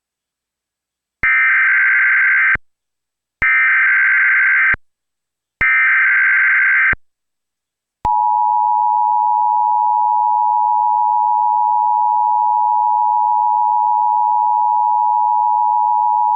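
Emergency Alert System broadcast: three bursts of SAME digital header data, each about a second and a half long and a second apart, then the steady two-tone EAS attention signal from about eight seconds in. Together they open a new issue of the tornado warning, before the spoken message.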